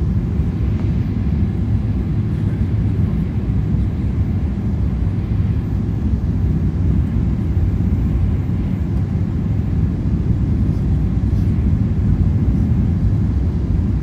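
Airliner cabin noise on final approach: jet engines and airflow heard from inside the cabin as a steady low rumble.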